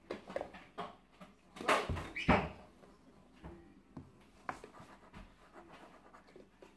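Spoons and small containers clinking, scraping and tapping on a kitchen counter while pancake ingredients are measured out. There are scattered light knocks, and two louder clatters about two seconds in.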